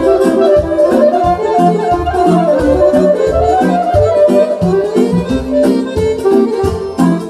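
Live hora dance music: a clarinet plays a fast, ornamented melody over an electronic keyboard's steady bass-and-chord beat.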